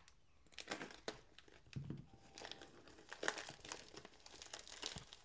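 Packaging crinkling and rustling as hands rummage through and pull at a mailed package, a quiet run of irregular crackles.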